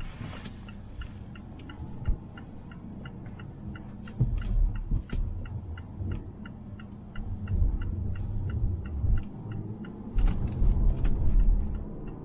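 A car's turn-signal indicator ticking steadily inside the cabin of a 2020 Mazda Atenza, about three ticks a second, over the low rumble of the moving car. Heavier low thumps and rumbles come about four seconds in and again in the last few seconds.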